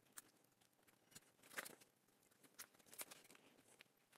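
Near silence, with a few faint clicks and rustles of hands handling a thick orange high-voltage cable harness and its plastic connector.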